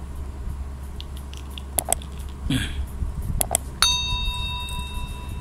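Subscribe-button animation sound effects: two quick pairs of mouse clicks with a short whoosh between them, then a notification bell dings near the end and rings on steadily.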